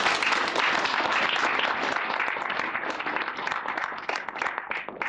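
Audience applauding: many hands clapping together, dense and steady, thinning into scattered separate claps near the end.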